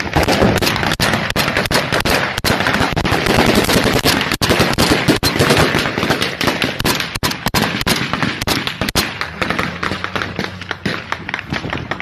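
Sustained small-arms gunfire: many rifle shots in quick, overlapping strings with hardly a gap, easing slightly near the end.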